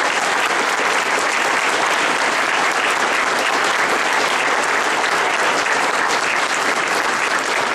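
A room full of people applauding steadily, dense clapping that holds at one level throughout.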